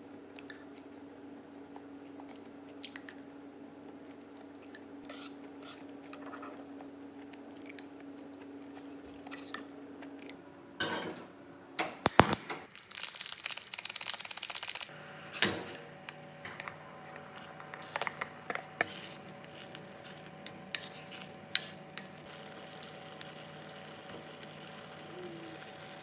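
Scattered clinks and clicks of cutlery and dishes, with a short stretch of rustling about halfway through, over a steady appliance hum.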